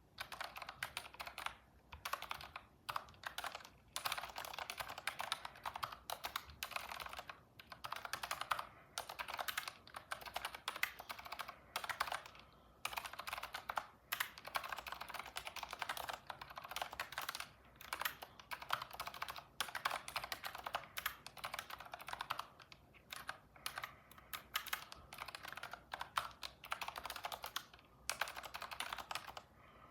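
Typing on a computer keyboard: rapid runs of keystrokes in bursts, broken by short pauses every few seconds.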